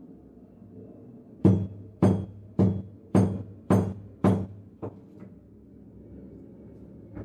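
A metal kitchen vessel knocked six times in a steady rhythm, about two knocks a second, each with a short deep ring, followed by two lighter taps.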